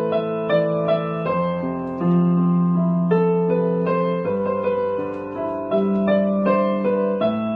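Electronic keyboard played with both hands in a piano voice: a slow, gentle piece of held chords over a bass line, the chord changing every second or so.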